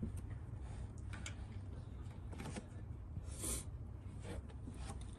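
Faint rustles and light clicks of gloved hands working down among engine parts, fitting a thermostat into its housing, over a low steady hum.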